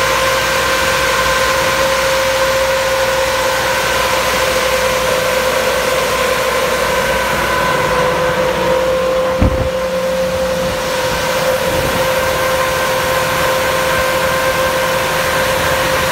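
C&N Tractors tractor-mounted bug vacuum running as it moves along the beds: a steady whine over a constant rush of air and engine noise. A single low thump comes about nine and a half seconds in.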